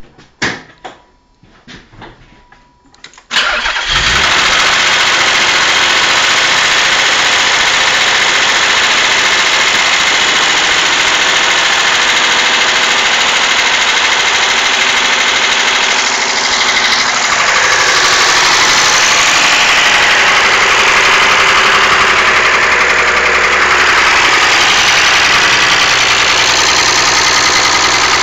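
Mazda MX-6's KL-ZE 2.5-litre V6 started after a few clicks, catching about three and a half seconds in, then running steadily with the knocking sound the owner wants to show.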